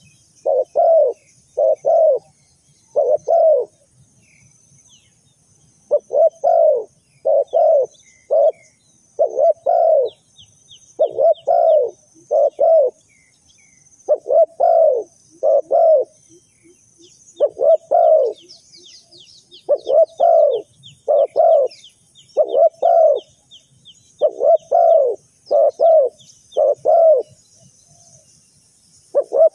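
Spotted dove cooing: phrase after phrase of two or three low coos, with short pauses between phrases. Faint high chirps and quick ticking trills sound behind it.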